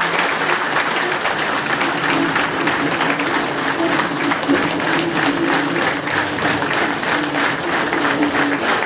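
A large audience in a hall applauding steadily, with individual claps standing out more after a few seconds.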